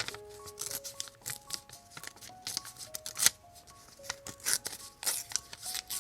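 Paper being handled and cut while decorating a journal: frequent short rustles, crisp snips and sharp clicks, the sharpest a little past halfway. Under them, quiet background music of slow, held notes.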